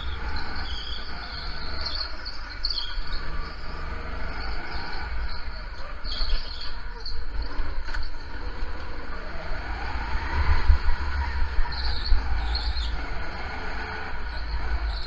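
Petrol go-kart engine running through a lap, its pitch rising and falling with the throttle, over heavy low rumble from the kart-mounted camera shaking. Short high squeals come and go every few seconds.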